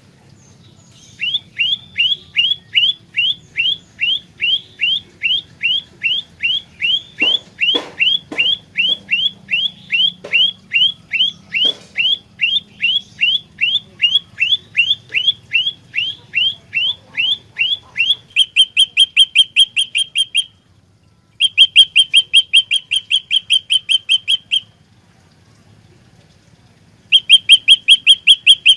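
Olive-backed tailorbird calling: a long run of sharp, evenly repeated notes, about two and a half a second. Near the middle there is a switch to faster, steadier notes in bursts broken by short pauses. A few soft knocks sound under the first run.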